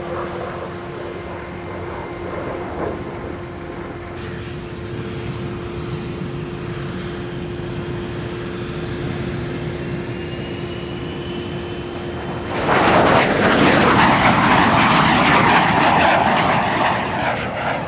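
Twin jet engines of an F-117 Nighthawk running with a steady, even whine. Near the end a much louder rush of jet noise comes in suddenly.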